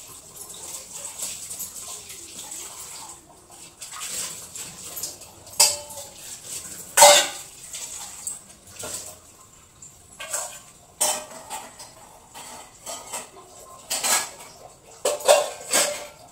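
Metal pots, plates and utensils clattering and clinking as they are handled and set down on a kitchen counter, with a few sharper clangs that ring briefly.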